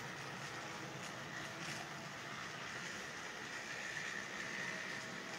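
Model Union Pacific freight train running along the layout track: a steady whir and hiss of motor and wheels, with a faint high whine that swells a little near the end.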